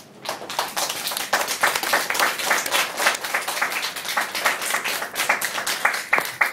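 Applause: many hands clapping in quick, irregular claps, starting a moment after the beginning.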